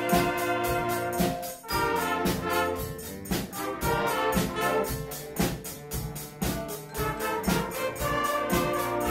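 Eighth-grade school band playing a piece, brass carrying held chords over a steady percussion beat.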